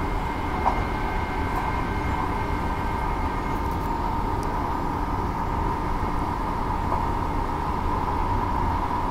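Interior running noise of a Walkers Limited electric multiple unit travelling at speed: a steady rumble with a continuous whine, and fainter higher tones that fade out a few seconds in. One brief click just under a second in.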